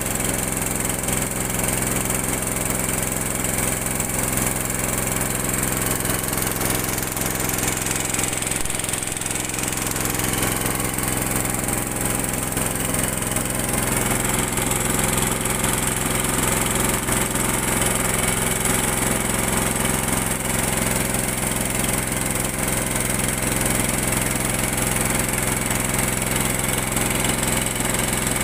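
Small wooden river boat's engine running steadily under way, an even, unchanging drone.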